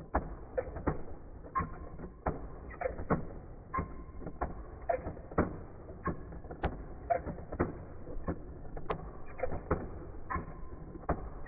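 Irregular plastic clicks and clacks from push-button toy fighting bases and the figures knocking together, about one to three a second, some followed by a short squeaky ring.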